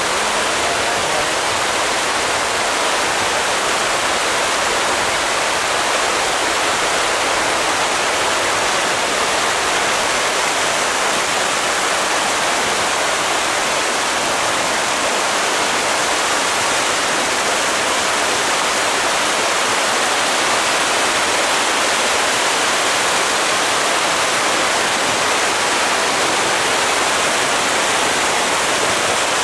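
A dense shoal of farmed tra catfish thrashing at the surface in a feeding frenzy as pellet feed hits the water: a steady, loud rush of splashing and churning water.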